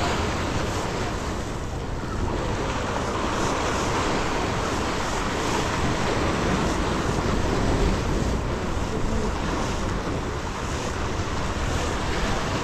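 Sea waves washing and breaking against the rocks of a breakwater, with wind buffeting the microphone; a steady mix of surf and wind.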